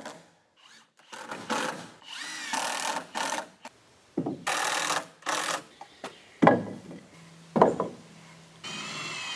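Power drill driving screws into a 2x4 wood frame in several short bursts, the motor's whine shifting in pitch as each screw seats. Two sharp knocks come a little past the middle.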